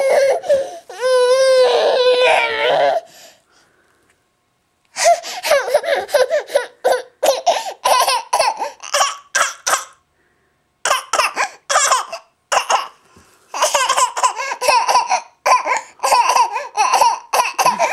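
A baby laughing in response to peekaboo: first a long, high, wavering squeal, then after a pause, runs of quick laughing bursts at about three or four a second, broken by short gaps.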